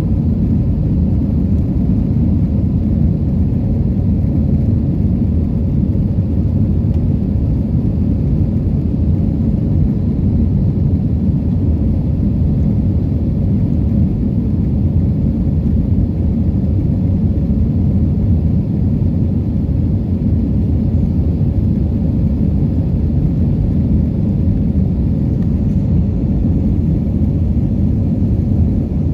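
Steady low rumble of an Airbus A321's engines and rushing air, heard inside the passenger cabin as the jet climbs out.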